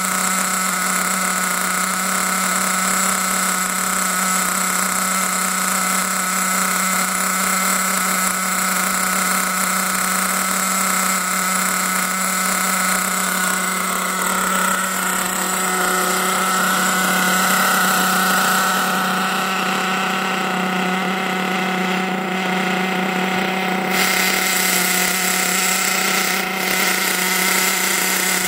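HPI Trophy Truggy 4.6's small nitro glow engine running steadily on a stand with the wheels off the ground, a loud, high buzzing drone, as the new engine is run in.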